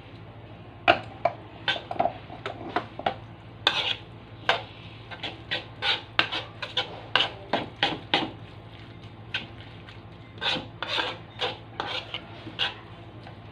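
Metal spoon stirring a wet mix of chopped herbs in sauce in a wooden bowl, a quick, irregular run of scrapes and clicks against the bowl.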